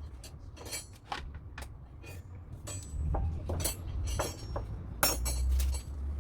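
Metal parts of a bird feeding station clinking and knocking together as it is assembled: an irregular run of sharp clinks, with a louder knock about five seconds in.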